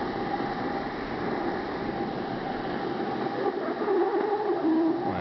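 Snowboard sliding down a freshly groomed corduroy run: a steady rushing scrape of the board over the snow, getting a little louder about four seconds in.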